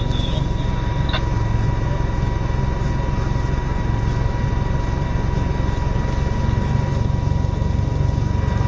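4x4 engine running steadily, heard from inside the cab as a low drone, with a thin steady high whine over it. A single click about a second in.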